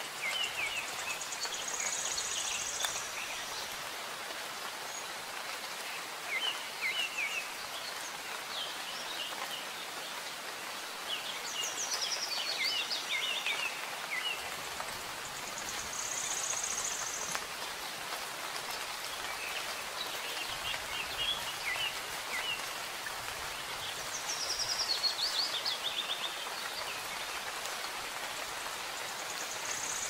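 Steady rain falling, with songbirds chirping over it. A high, buzzy trill comes three times, and twice a quick run of notes steps down in pitch.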